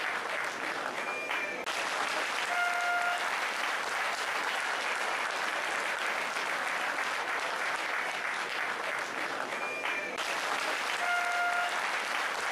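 Steady crowd noise like applause, with no breaks. A short high whistle-like tone sounds about a second in and a brief pitched horn-like tone follows, and the same pair comes again near the end.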